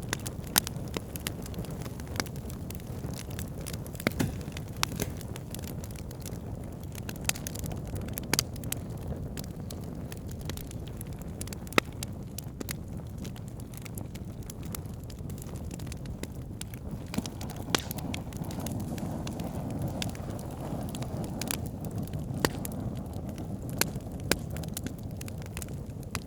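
Wood campfire burning: a steady low rumble of flames with sharp, irregular pops and crackles from the burning logs.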